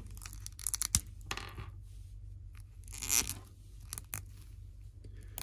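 Small hard-plastic action figure and its parts being handled: a few short clicks and scrapes of plastic on plastic, with a sharp click about a second in and a longer scrape around three seconds in.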